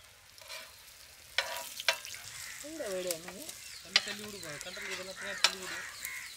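Food sizzling and crackling in a hot pan while a utensil stirs and scrapes it, with a few sharp taps.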